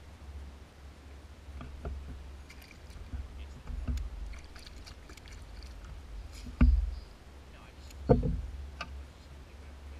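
Knocks and thumps on a small fishing boat over a steady low rumble, with two loud thumps about six and a half and eight seconds in, and lighter clicks between.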